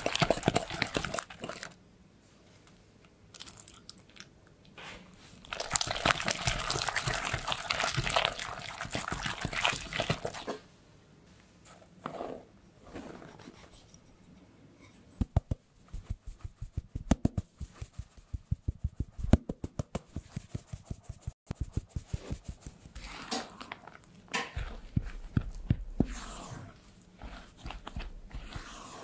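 Hand-mixing sounds in a glass bowl: a spatula scrapes through sticky peanut butter cookie dough, then flour is sifted through a metal mesh sieve, with a long run of quick taps near the middle. Near the end the spatula folds the flour into the dough with soft scraping and rustling.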